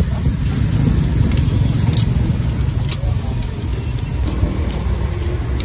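Steady low street rumble, with several sharp metallic clicks of stainless tongs knocking against a charcoal grill's wire grate as meat is turned.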